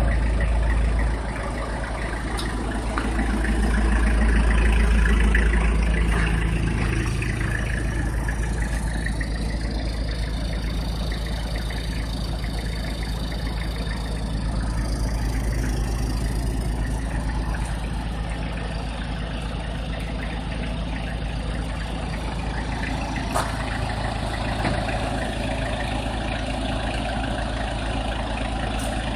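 Engine of a mobile sales truck idling steadily, swelling louder for a few seconds near the start.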